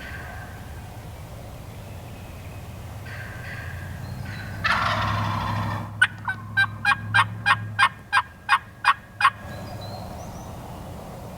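A wild turkey gobbling, a rattling call of a little over a second about five seconds in. It is followed by a run of about eleven sharp, evenly spaced turkey yelps, about three a second.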